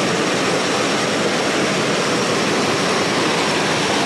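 Steady rushing of river water over rocks, an even hiss with no breaks or changes.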